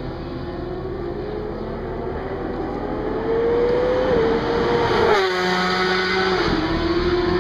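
Racing motorcycle engine running at high revs on the track. Its note climbs slowly, grows louder about three seconds in, then falls in a few steps around five seconds in.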